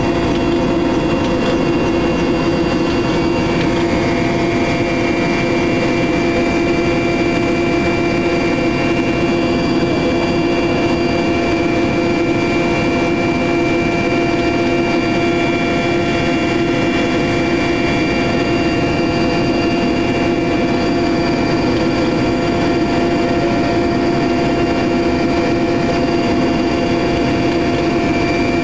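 Cabin noise inside a Mil Mi-8 helicopter in flight: the twin turboshaft engines and main rotor run with a loud, even drone under a steady high turbine whine. A further high whine joins about three seconds in.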